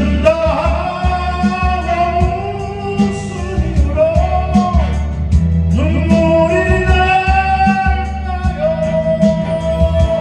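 Solo voice singing a slow Korean ballad, holding long notes with vibrato over a backing track with a steady bass.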